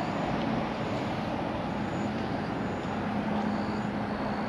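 Steady outdoor background noise, an even rumble and hiss with a faint low hum and no distinct event.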